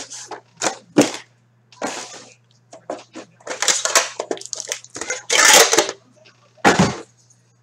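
Hands opening a hockey card box and its packaging: cardboard and plastic wrap rustling and crinkling in short bursts, with a few sharp knocks and a heavier thump near the end.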